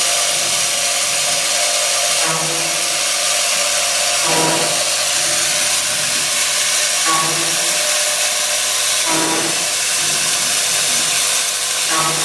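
Valve stem groove milling machine running: a steady loud hiss, with a short lower mechanical sound recurring about every two to three seconds.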